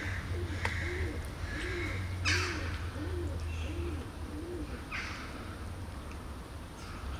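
A dove cooing: a series of about seven short, soft coos, each rising and falling, evenly spaced over the first four and a half seconds. A few sharp clicks and a louder brief rustle about two seconds in, over a steady low hum.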